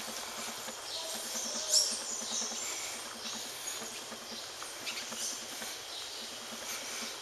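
Small birds chirping in street trees over a steady outdoor background, with one sharper, louder call about two seconds in.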